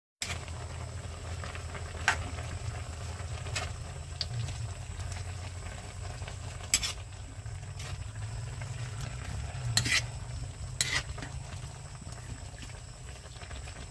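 Metal spatula stirring vegetables in a wok, clinking sharply against the pan about six times over a light steady sizzle and a low hum.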